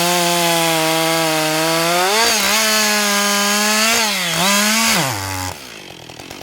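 Husqvarna 560 XP two-stroke chainsaw running at full throttle, its pitch sagging briefly twice, about two and four seconds in, as the chain takes load in wood. A little after five seconds the throttle is released and the engine drops to a quieter idle.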